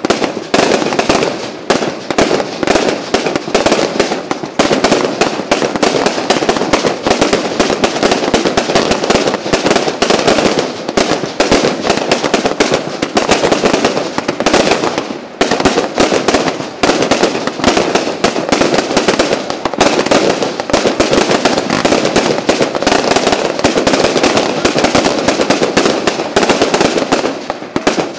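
Fireworks display going off in a dense, continuous barrage of rapid bangs and crackling, so loud that it hurts the ears, easing briefly about halfway through before building again.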